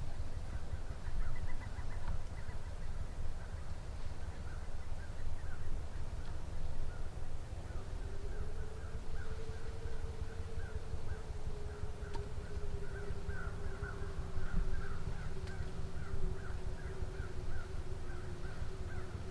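Crows cawing over and over, a steady run of short calls about twice a second. From about halfway through, a steady drone slowly falls in pitch under the calls, over a low rumble.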